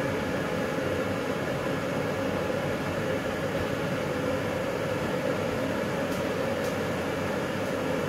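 Steady fan-like hum and hiss of a running kitchen appliance, with two faint ticks about six seconds in.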